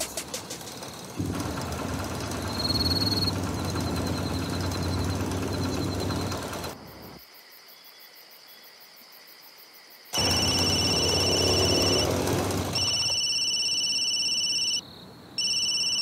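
Mobile phone ringing: an electronic ringtone of two high steady tones that starts about ten seconds in and sounds in three rings of about two seconds each, with short gaps between them. Before it comes a stretch of night ambience with faint cricket chirps, then a few seconds of near quiet.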